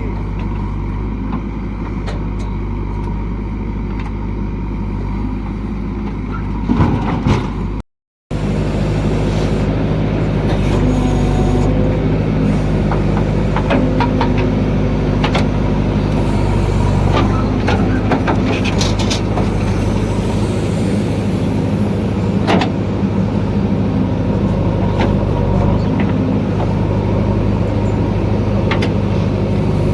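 Heavy diesel engines of a backhoe loader and farm tractors running steadily at work, with scattered metallic clanks and knocks. The sound cuts out briefly about eight seconds in.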